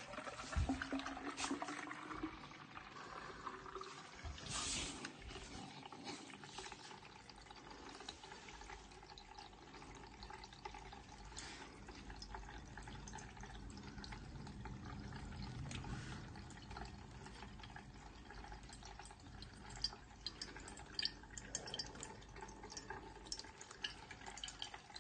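Faint water trickling and dripping in a Haier dishwasher that is leaking, with scattered light clicks.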